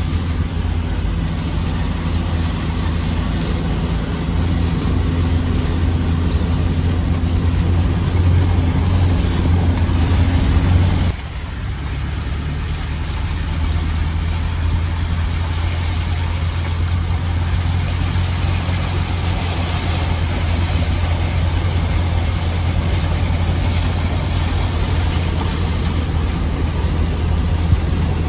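Four-wheel-drive's engine running with a steady low drone inside the cab while it wades through floodwater covering the road, with water washing against the wheels and body. The sound drops and changes abruptly about eleven seconds in, then runs on steadily.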